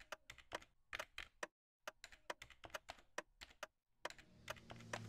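Sharp, quick clicks like keyboard typing, a few a second and unevenly spaced, stopping briefly twice. This is an intro sound effect. About four seconds in, a swell of noise starts rising under the last clicks.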